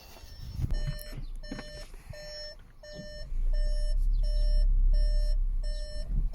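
Car's parking-sensor beeps repeating at an even pace, about one and a half a second, with the car in reverse. A few knocks come in the first seconds, and a low rumble starts about three seconds in.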